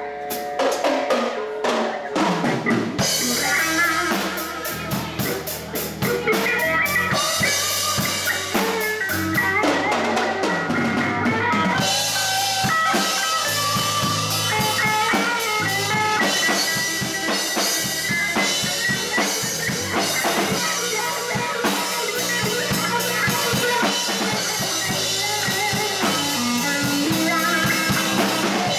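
Live blues band playing an electric bass, an electric guitar and a drum kit. The drums start just after the opening, and the low bass comes in about three seconds later.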